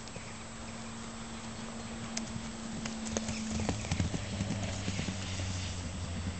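Hoofbeats of a trotter mare galloping flat out across a grass paddock, dull irregular thuds on the soft turf. A steady low hum sits behind them and drops in pitch about halfway through.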